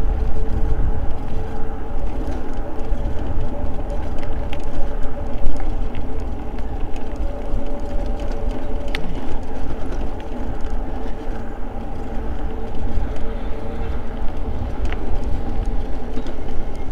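Eahora Juliet e-bike riding along a paved trail at a steady pace: heavy wind rumble on the microphone with a steady whine and tyre noise underneath, and a few sharp clicks.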